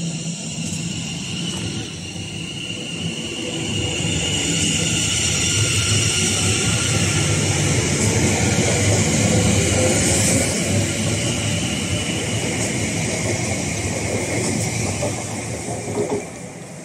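Greater Anglia Class 720 Aventra electric multiple unit moving past along the platform: a high, steady electric whine from its traction equipment over the rumble of wheels on rail. It grows louder a few seconds in, peaks mid-way, then fades near the end.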